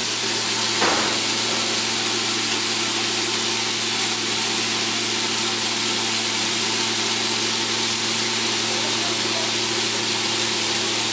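Broomtail grouper fillets sizzling steadily in bacon grease on a flat-top griddle, over a steady low hum, with a brief tap about a second in.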